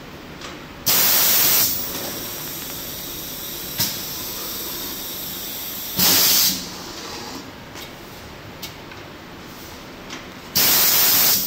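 Pneumatic press of a high-frequency PVC blister sealing machine cycling: three loud bursts of compressed-air hiss, each under a second, about every four to five seconds as the air cylinder's valve exhausts, with a steady machine hum between and a single click about four seconds in.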